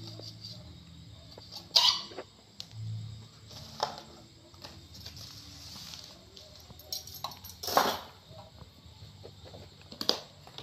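Knocks and clinks of bowls, utensils and a knife being handled during food preparation: a few sharp ones spread out, the loudest about two seconds in and near eight seconds. A low hum comes and goes.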